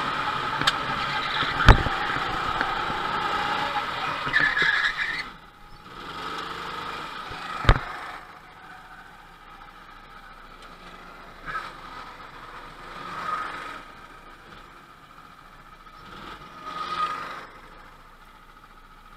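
Go-kart engine running close by, rising briefly about four seconds in, then cutting out suddenly after about five seconds as the kart comes to a stop. A sharp knock comes about two seconds in and another about eight seconds in; after that only faint swells of other karts going by.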